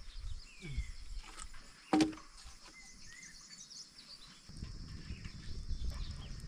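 Outdoor ambience of small birds chirping over a steady high insect drone. A single sharp knock sounds about two seconds in, and a low rumbling noise comes in over the last two seconds.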